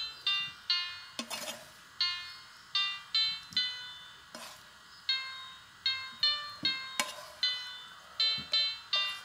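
Background music: a light melody of short, bright notes that each ring and fade, with a few short clicks.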